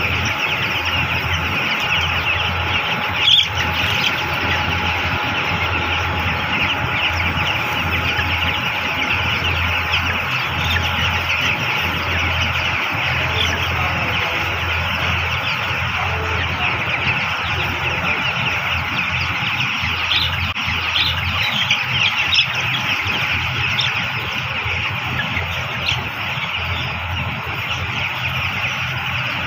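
A large flock of 12-day-old broiler chicks chirping all at once in a dense, continuous chorus of high peeps, over a steady low machine hum.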